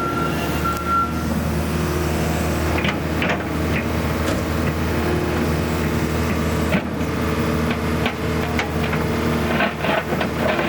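2007 Kobelco SK160LC excavator's diesel engine running steadily, its travel alarm beeping until about a second in, with several sharp knocks from the machine through the rest.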